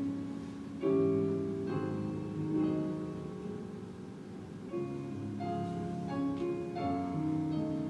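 Slow, gentle instrumental music: held chords that change every second or so, with new notes coming in about a second in and again twice in the second half.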